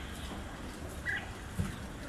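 One short, high chirp from a small animal about a second in, then a soft low thump, over a steady low rumble.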